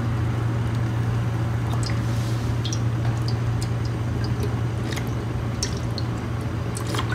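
Cooking oil poured in a thin stream into a hot non-stick pan already holding ghee: a soft trickle with scattered small ticks, over a steady low hum.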